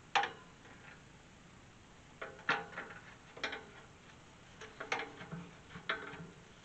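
Tubular steel farm gate clanking against its hinges and post as it is swung and jostled into place: a handful of sharp metal knocks, each with a short ring, the first one, right at the start, the loudest.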